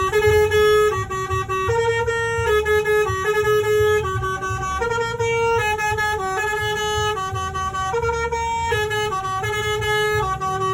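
Basuri "telolet" multi-tone bus horn playing a tune: a loud sequence of steady held notes stepping up and down in pitch, a new note a little under once a second, over a low rumble.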